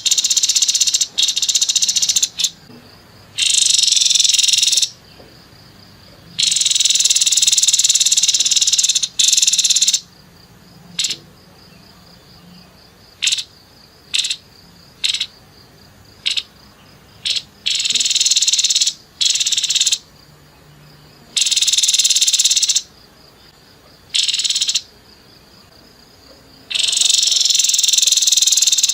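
Grey-headed babbler giving harsh, rasping rattles in bursts of one to three seconds, separated by short sharp chips.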